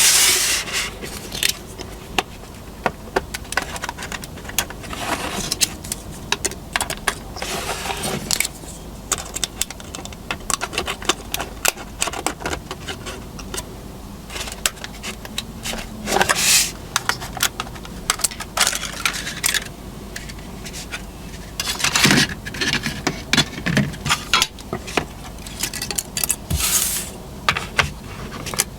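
Many small plastic clicks, taps and scrapes as the body shell of a Dapol Class 121 model railcar is prised off its chassis with thin shims pushing the locking tabs aside. There are a few louder bursts of handling about halfway through and near the end.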